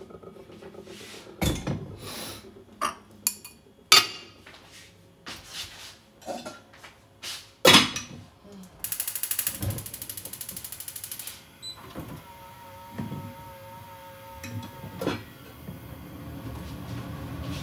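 Cookware clatter at a gas stove: a pan and pots knocking and clanking in separate sharp strikes. In the middle comes a run of rapid, even ticking lasting about two and a half seconds.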